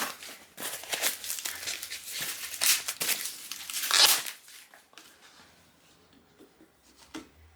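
Plastic packaging crinkling and tearing as bike parts are handled, with a loud crackle at the start and another about four seconds in, then it goes quiet.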